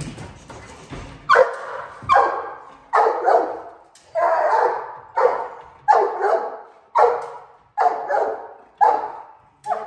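Large brindle mastiff barking repeatedly at a decoy in protection training, about ten loud barks at a steady pace of a little over one a second.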